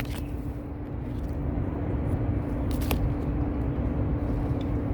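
Steady low rumble of distant road traffic with a constant faint hum, broken by a couple of short clicks, one near the start and one about three seconds in.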